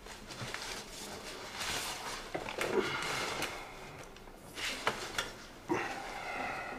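The paper wrapping of a bouquet of flowers rustling and crinkling as it is handled and lifted, in irregular spells with sharp crackles.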